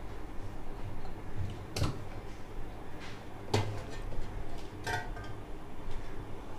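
Three sharp clicks and knocks, a second or so apart, as a TV circuit board and soldering tools are handled on a workbench, over a steady low hum.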